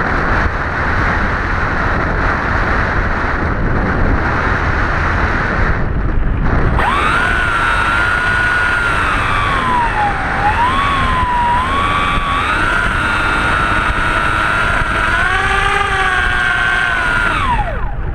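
Blitz RC Skysurfer model plane in flight: a steady rushing of air for about seven seconds, then its electric motor and propeller whine, the pitch rising and falling with the throttle. Near the end the pitch glides down and the motor stops.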